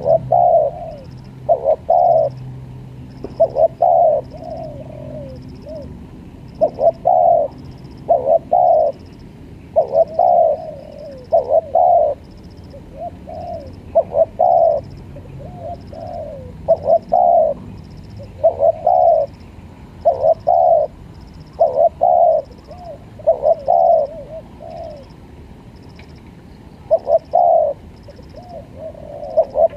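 Spotted dove (tekukur) cooing over and over, its calls coming in groups of two or three deep notes with a softer trailing note. This is the kind of call used as a lure for wild doves. A faint high chirp repeats about once a second behind it.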